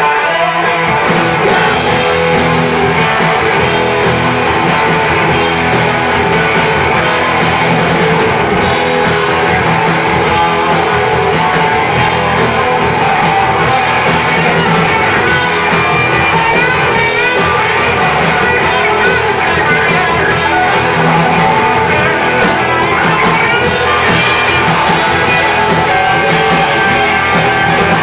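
Hard rock band playing live, with electric guitars through Marshall amps, bass guitar and a drum kit; loud and steady throughout.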